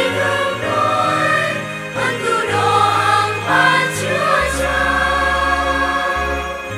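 Church choir, mostly women's voices, singing a responsorial psalm over electronic keyboard accompaniment with held bass notes.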